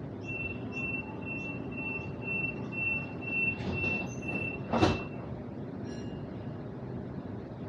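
Train door-closing warning: a high beep repeating about twice a second for about five seconds, ending in one loud thump as the doors shut. A low steady rumble from the stationary train carriage sits underneath.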